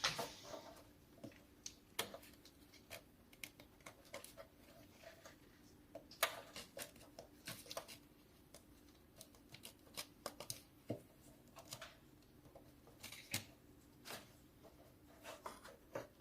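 Scattered light clicks and taps of tools and parts being handled, at irregular intervals over a faint steady hum.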